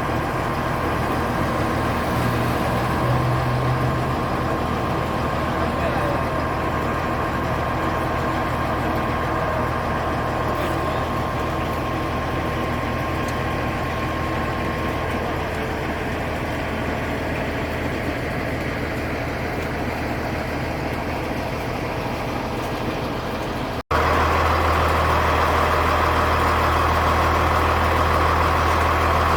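Heavy diesel engine of a Wirtgen W2000 cold milling machine running steadily. About three-quarters of the way through there is a brief cut, and after it the engine sound is louder and steadier.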